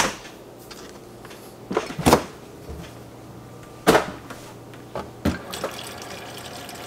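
Refrigerator door and a plastic water bottle being handled, with a few sharp knocks and clatters over a steady low hum. Near the end, water from the fridge's built-in dispenser starts running into the bottle.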